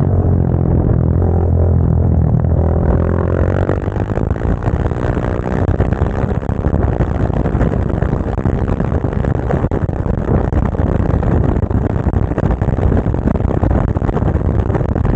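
Motorcycle engine under way, its pitch rising and falling with the throttle for the first few seconds, then settling into a steady rushing noise with the engine running underneath.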